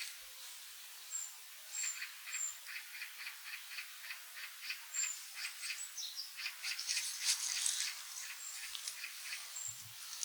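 Small forest birds calling: brief thin high-pitched notes every so often, over a long run of short, rapid scratchy notes that grows busiest and loudest about two-thirds of the way through.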